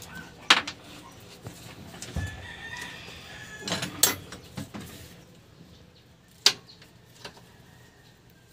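A rooster crowing once, starting about two seconds in, heard behind sharp clicks and knocks from hands working on parts in the engine bay; the loudest clicks come about half a second in and again about six seconds in.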